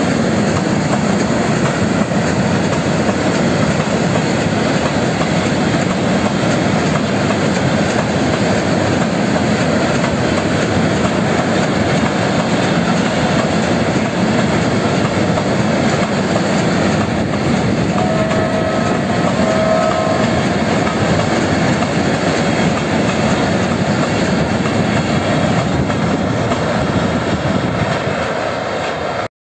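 Long freight train of cement hopper wagons rolling past: a steady rumble of wheels on rail with clickety-clack over the rail joints, and a couple of short wheel squeals about two-thirds of the way through.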